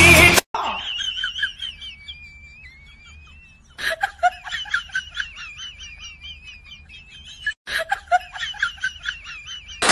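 High-pitched laughter in quick, repeated bursts, with a long, high, drawn-out squeal in the first few seconds.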